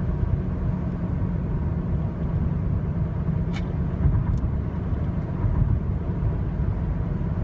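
Low, steady drone inside a 2007 Honda Civic's cabin while driving at 40 mph. It is a dull sound that the owner suspects comes from a bad wheel bearing.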